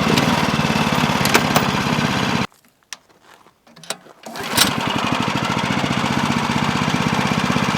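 Champion 196cc single-cylinder four-stroke engine running steadily at a fast idle, fairly quiet, its firing pulses even. The sound cuts off abruptly about two and a half seconds in and the engine is running again about two seconds later.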